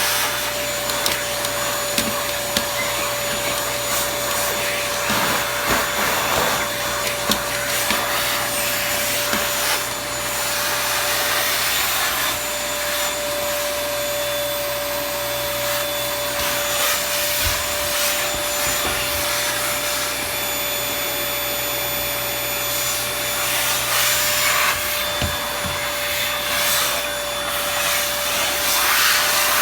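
Toshiba VC-PB9 vacuum cleaner running steadily: a constant motor whine over a rushing airflow hiss that swells and eases as the nozzle moves, with occasional small knocks.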